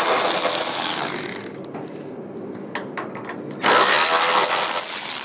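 Handheld cordless power driver spinning in the bolts of a truck's hood hinge, in two runs of a second or two each; the second starts about three and a half seconds in, and a few light clicks come between them.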